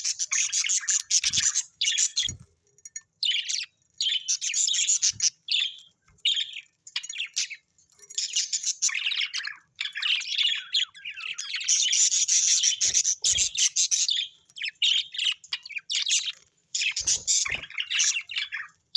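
Small parrots chattering and chirping in rapid, busy bursts of one to two seconds with short pauses between. A few brief low knocks come through.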